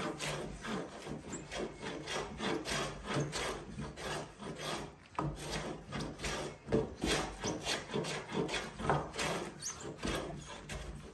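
Carriage plane shaving the cheek of a timber tenon, in quick repeated strokes about two a second, each a short scraping rasp of the blade over the wood.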